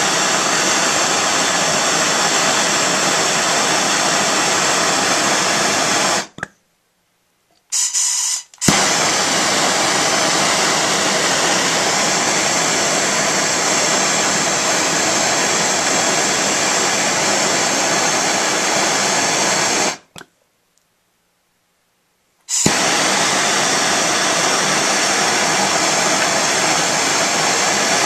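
Gas torch flame hissing steadily as it heats a brass saxophone mouthpiece for silver soldering. The hiss cuts off abruptly about six seconds in and again about twenty seconds in, each time for about two seconds, then starts again suddenly.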